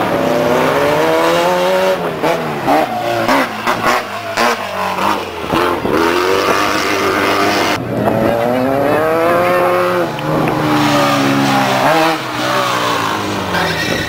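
Off-road race car engine revving hard, its pitch climbing and falling several times, with a stretch of sharp clicks and knocks in the middle.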